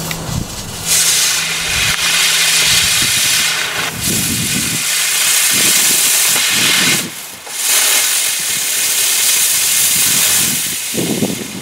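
Nova Fireworks Street Wheel spinning wheel firework hissing loudly as its drivers burn and spray sparks. The hiss surges about a second in, drops briefly about seven seconds in, then picks up again and fades near the end as the wheel burns out.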